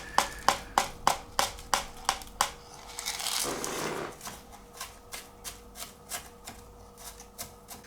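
Rapid, even run of sharp taps, about three or four a second, as a soil scoop is knocked to shake loose wet, sticky bonsai substrate, with a brief rush of soil sliding off about three and a half seconds in. The taps grow fainter in the second half.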